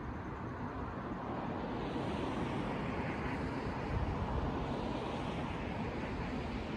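Steady outdoor background noise: a low rumble with a hiss above it, even throughout.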